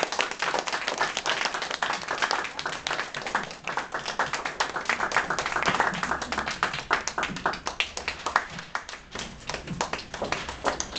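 Audience applauding, many hands clapping throughout.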